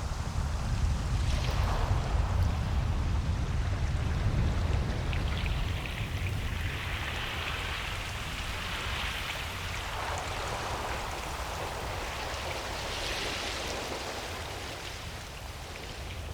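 Ocean surf washing onto a beach: a continuous wash of water over a low rumble, with a wave swelling and hissing every few seconds.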